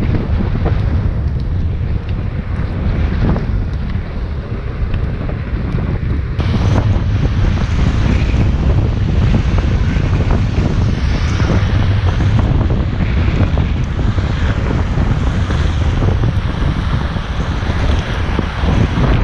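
Wind rushing over the microphone while riding a Onewheel XR electric board, a steady low rumble that grows stronger about six seconds in.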